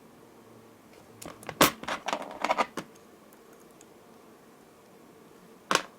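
Small metal clicks and taps of jewelry pliers working a metal jump ring open: a quick cluster of clicks between one and three seconds in, and one more near the end.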